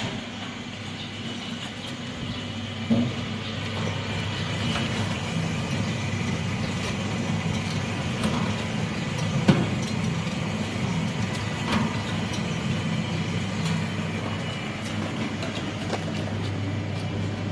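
Small gas-fired (LPG) peanut roaster running with its burner lit: a steady low hum under an even hiss. A few light knocks are heard, the sharpest about nine and a half seconds in.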